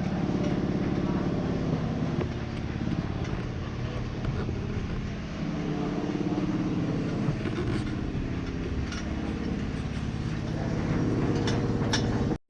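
Steady low mechanical drone of a running motor, with a few light clicks and taps; the sound cuts off suddenly at the very end.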